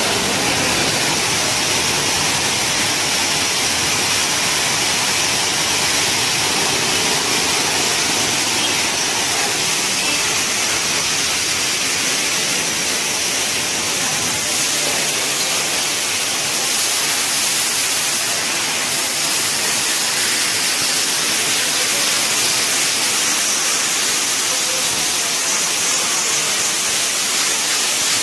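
High-pressure water spray from a car-wash pressure-washer hose, a steady hiss that runs on without a break as the jet strikes the animal and the wet floor.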